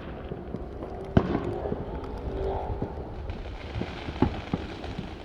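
Fireworks going off in the distance, irregular sharp bangs with smaller pops between them. The loudest bang comes about a second in and another strong one about four seconds in.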